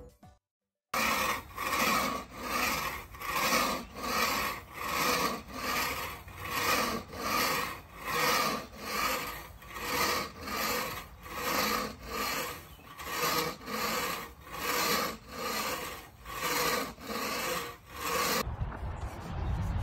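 Long-handled floor scraper blade pushed in repeated strokes over an epoxy flake coating on concrete, scraping off loose flakes, about one stroke a second. It starts about a second in and stops near the end.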